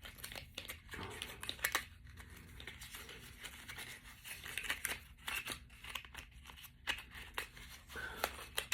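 Packaging rustling and crinkling with irregular small clicks and light knocks as the parts of a copper pipe crimping tool kit are handled.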